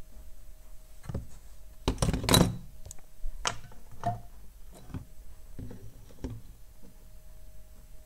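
A series of knocks and thuds from things being handled and set down on a workbench, the loudest about two seconds in, with a few lighter knocks after.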